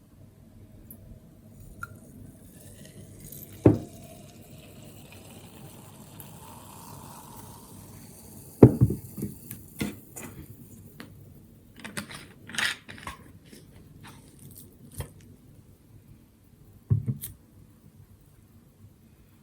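Bottle of plum-flavoured carbonated water being handled: a soft hiss of escaping gas lasting a few seconds, with sharp knocks and clicks of the bottle and glass against a hard surface. The loudest knocks come about a third of the way in and again near the end.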